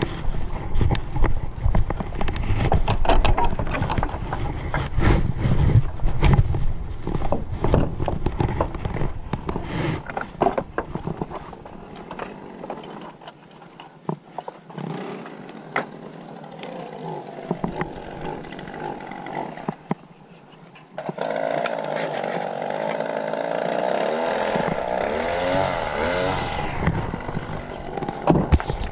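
Irregular knocks and clatter with low rumble, then about 21 seconds in a small gas engine of lawn equipment starts and runs, its pitch rising and falling as it revs.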